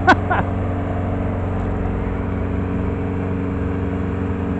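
Engine of a House Cat robotic crawler dozer running steadily as it moves a modular home section up a gravel driveway.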